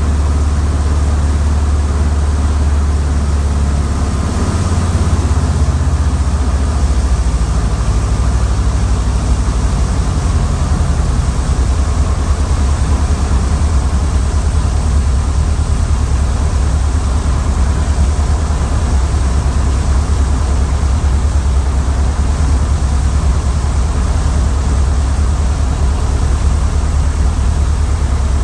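Funk light airplane's piston engine running steadily, with loud, even engine and airflow noise, heard from aboard. The engine note shifts slightly about four seconds in.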